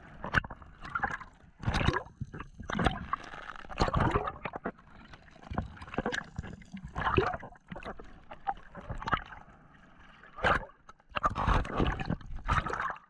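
Sea water sloshing and gurgling in irregular loud surges around an action camera at and below the surface.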